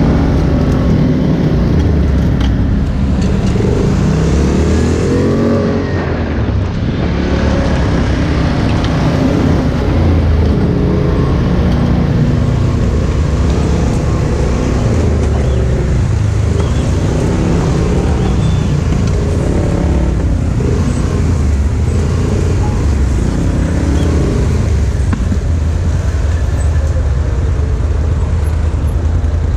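Polaris Sportsman 1000 ATV's twin-cylinder engine running under way on a dirt trail, heard from the rider's seat. The engine note rises and falls with the throttle, with a short rev about four to six seconds in.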